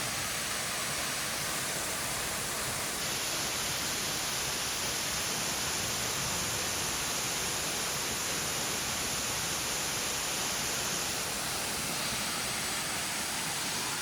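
A waterfall about 12 metres high, falling water making a steady, even rushing noise.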